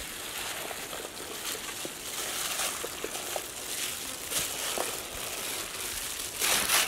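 Gloved hands mixing marinated chicken pieces into flour in a large steel pot: thin plastic gloves crinkling and rustling against the coated chicken, with scattered small ticks. It gets louder near the end.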